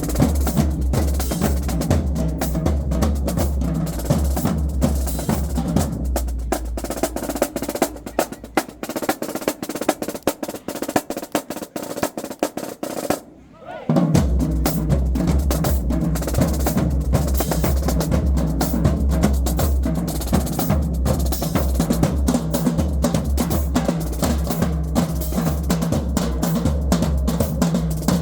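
High school marching band drumline playing: snares, tenors and bass drums together. About seven seconds in the bass drums drop out, leaving lighter, sparser drumming that stops briefly near the middle. The full line then comes back in with the bass drums.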